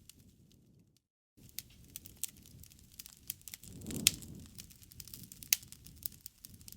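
Wood fire crackling, with scattered sharp snaps and pops; a low rushing flare-up with the loudest pop comes about four seconds in, and another sharp pop a second and a half later. The sound cuts out completely for a moment about a second in.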